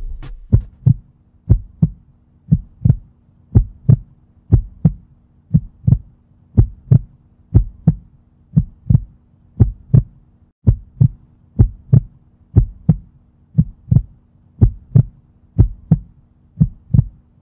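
A heartbeat-like double thump, lub-dub, repeating about once a second at an even pace, over a faint steady hum.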